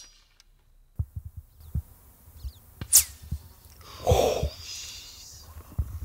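Subsonic 8.6 Blackout bullet flying past in a near miss: a sharp snap about three seconds in that trails off into a falling whistle, followed about a second later by a short rushing burst.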